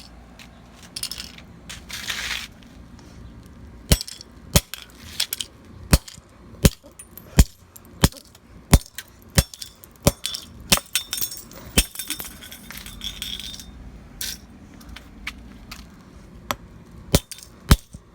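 A kitchen timer being smashed: a run of sharp knocks and clinks, about one every two-thirds of a second for several seconds, then more scattered blows.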